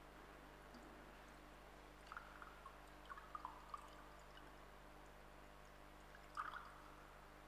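Faint pouring of wine and water from cruets into the chalice at the ablutions of Mass, in short spells about two to four seconds in and again near the end, over a low steady hum.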